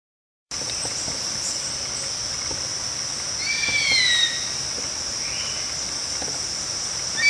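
A steady, high-pitched insect drone, with a single screech of a bird of prey about three and a half seconds in: it rises briefly and then falls away. A second screech starts near the end.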